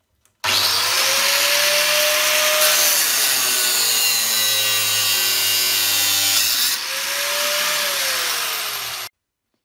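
Makita angle grinder in a cut-off stand cutting through an 8 mm steel linear rail rod with a loud, steady grinding noise. It starts abruptly about half a second in, eases off about two-thirds of the way through as the cut finishes, and stops abruptly near the end.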